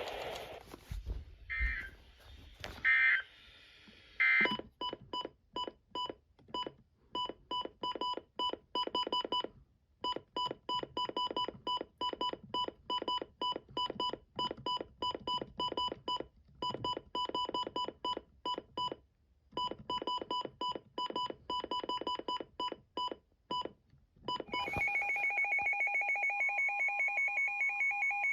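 An electronic alert beeper sounding rapid, evenly pitched beeps in runs broken by short pauses for about twenty seconds. About 25 seconds in, a steady two-tone alert tone starts: the Emergency Alert System attention signal that opens the next weather warning broadcast.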